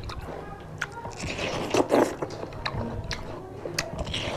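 Close-up eating sounds: juicy bites into watermelon and chewing, with scattered short crunches and mouth clicks.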